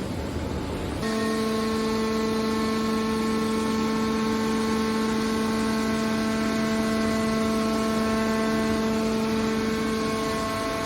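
Steady machine hum with a strong, unchanging low tone and a noisy undertone, which sets in abruptly about a second in after a rushing noise.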